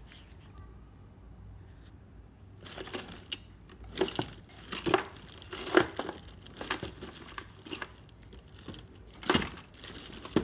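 Handling noise from a charger circuit board being moved and fitted on a paper-covered bench: rustling and crinkling with a handful of sharp clicks. It starts about two and a half seconds in, and another click comes near the end.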